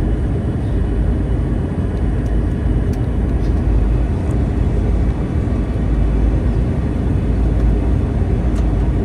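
Steady low rumble of an Airbus A321's engines and rushing air, heard from inside the passenger cabin.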